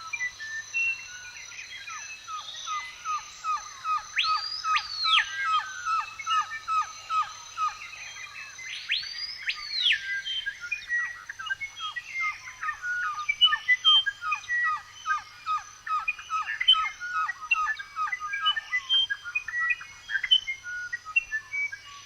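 Several songbirds singing together, with a stream of short chirps. One bird repeats a loud call that rises and falls about every five seconds. A thin steady high tone runs beneath.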